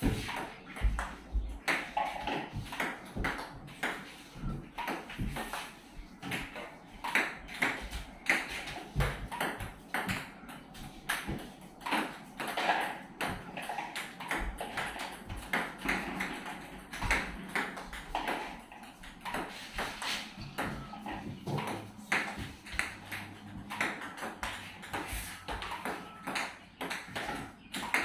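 Table tennis balls clicking off rubber paddles and bouncing on the table, a steady run of short sharp hits about two a second, as in a multiball feeding drill.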